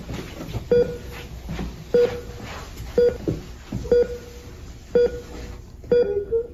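Hospital heart monitor beeping steadily, about once a second, six evenly spaced beeps of the same pitch over a low steady room hum.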